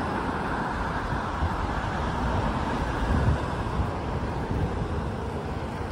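Steady street traffic noise with some wind on the microphone.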